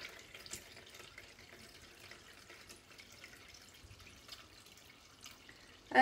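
Homemade grape vinegar pouring in a thin stream from a glass jar into a cloth-lined strainer: a faint steady trickle with a few small drips. This is the slow straining of the fermented vinegar off the grapes.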